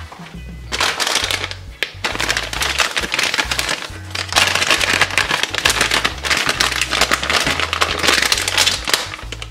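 Thin plastic MRE heater bag crinkling and rustling loudly as hands work a warmed pouch out of it, over background music with a steady bass line.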